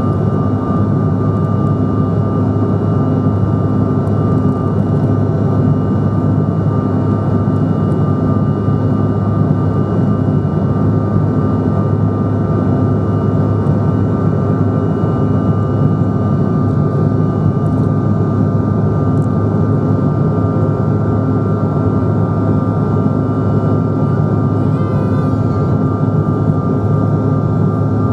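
Cabin noise of a Bombardier CRJ900 climbing out after takeoff: a steady, loud jet roar from its rear-mounted GE CF34 turbofans, heard from inside the cabin with a steady high whine over it.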